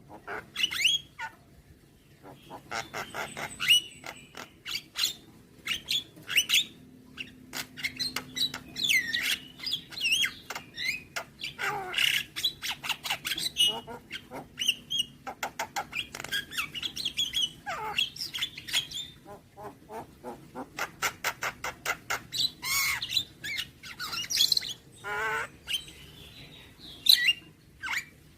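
Javan myna (jalak kebo) singing a long, varied song full of mimicked phrases. Runs of rapid clicking rattles alternate with curving whistles and harsh squawks.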